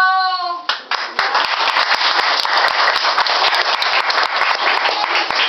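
Audience applauding: a dense, steady run of many hand claps that starts about a second in.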